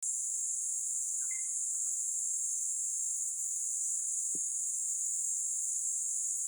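Steady, high-pitched chorus of insects in the dry scrub, with a short chirp of a few quick pulses about a second in and a brief low knock a little past the middle.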